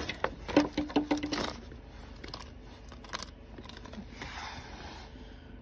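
Thin plastic crinkling and clicking as small plastic plant pots and a cut-down milk-jug seed container are handled, busiest in the first second and a half, then softer scattered rustling.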